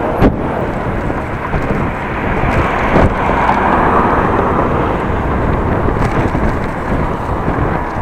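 Steady rushing noise from wind and motion on an action camera's microphone while cycling, with a few light knocks as the bike rolls along.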